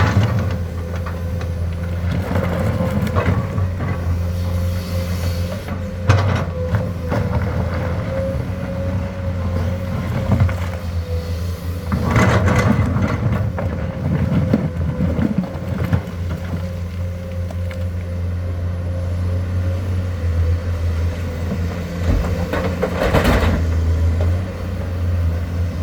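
Komatsu excavator's diesel engine running steadily with a constant whine over it. Several louder rough bursts of noise break in while it works, the longest about twelve seconds in.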